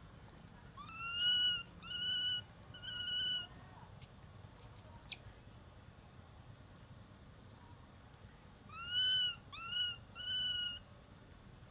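Infant macaque giving high, thin coo calls in two bouts of three, each call about half a second long, the first of each bout arching up and then down. A single sharp click comes between the two bouts.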